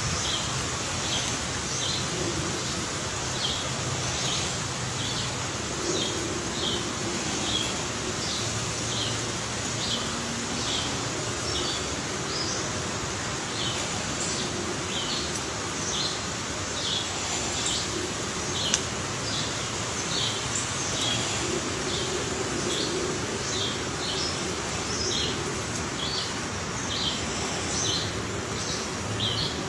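A bird calling with short, high chirps repeated about once or twice a second, over a steady outdoor noise background.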